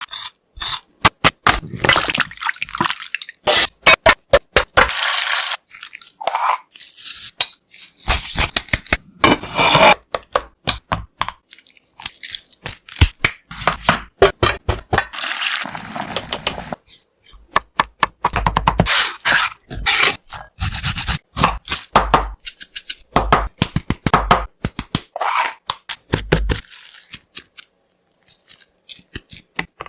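Crispy fried chicken crunching and crackling loudly, in runs of sharp crackles broken by short silent gaps.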